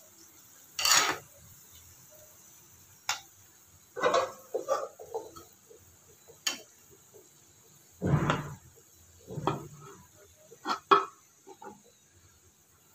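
A flat spatula scraping and knocking against a kadai as fried golden-brown onions are pushed aside and lifted out of the hot oil: irregular scrapes and clinks, one every second or two.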